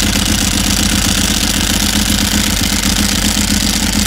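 Ducati 996R's 90-degree L-twin engine idling steadily.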